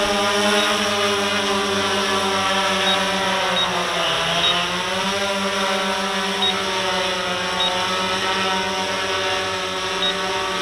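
Electric motors and propellers of an RC Timer S1100 octacopter humming steadily as it hovers low. The hum's pitch dips about four seconds in and climbs back.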